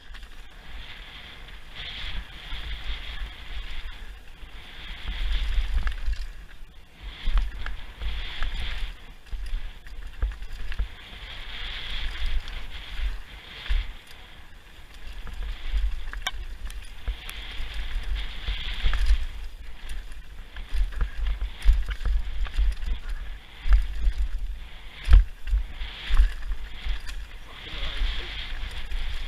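Mountain bike riding fast down a rocky dirt trail, heard from a rider-mounted action camera: wind buffets the microphone in a low rumble over the hiss of the tyres on the trail, with the bike rattling and knocking sharply over bumps.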